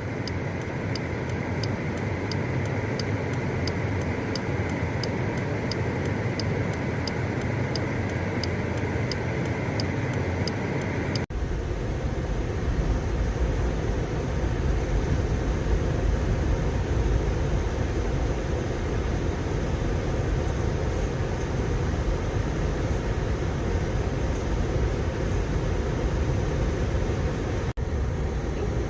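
Steady road and engine noise inside a car driving on a snow-covered highway. For the first third there is a regular light ticking, a little under twice a second. After that the low rumble is heavier.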